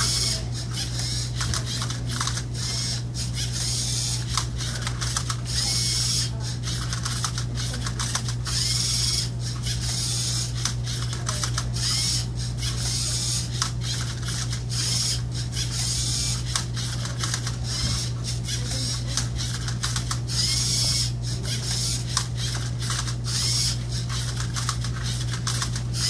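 LEGO Mindstorms EV3 Rubik's Cube robot at work: its motors whir in short bursts every few seconds, with many quick plastic clicks and clacks as the cube is turned, over a steady low hum.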